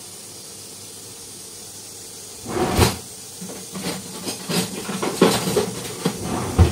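Steady hiss of food cooking on the stove, then from about two and a half seconds in, a run of irregular clatters and knocks of kitchen utensils being handled, two of them louder than the rest.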